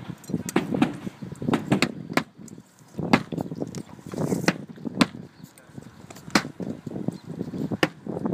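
Hammer nailing metal valley flashing and roofing felt onto a roof deck: about ten sharp, irregular blows, roughly a second apart, with softer scuffing in between.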